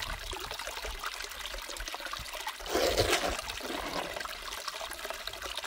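Water trickling steadily down a small gold sluice box. About three seconds in there is a brief louder rush as a handful of paydirt is fed into the flow.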